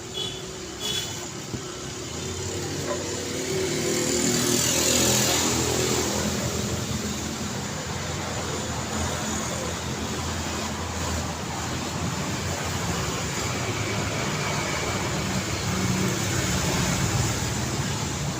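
Street traffic: vehicle engines and tyre noise run on steadily, and one vehicle passes close about five seconds in. Two short high beeps sound near the start.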